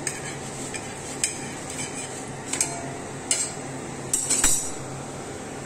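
Steel tongs clinking against an iron tawa as a roti is turned and shifted on it: a handful of short, light metal clicks at uneven intervals, with a quick cluster of clicks a little past four seconds in, over a low steady hum.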